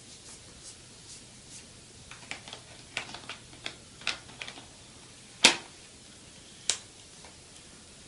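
Small clicks and ticks from working a Canon DSLR fitted with a Canon EF 75-300mm f/4-5.6 III USM zoom lens during an operation check: a scatter of light clicks, then one sharp click about halfway through and another about a second later.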